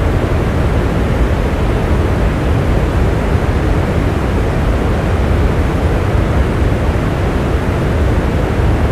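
Steady rain, a dense even hiss with a strong low rumble and no separate drops or thunder standing out.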